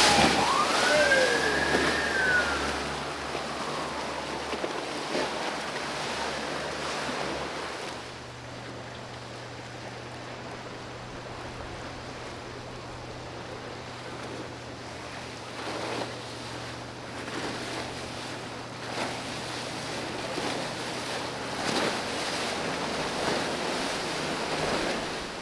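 Choppy water and boat wakes churning and slapping as outboard-powered boats pass, with a steady low engine hum through much of it. A short rising-and-falling whistle sounds near the start.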